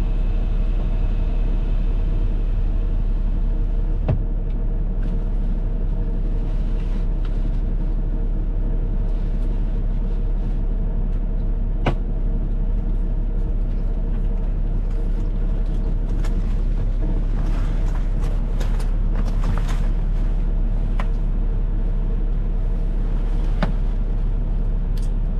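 A semi-truck engine running steadily: a continuous low rumble at constant speed, with a few faint clicks.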